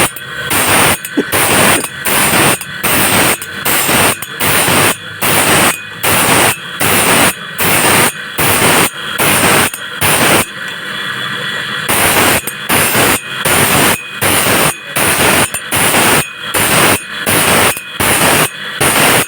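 Wood being worked by hand in regular noisy strokes, about one and a half to two a second, with a short break in the rhythm about ten seconds in.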